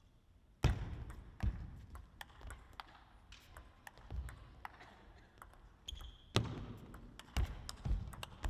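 Table tennis rally: a celluloid-type ball clicking sharply off bats and table at an irregular pace, about two hits a second, starting under a second in. There is a brief high squeak about six seconds in.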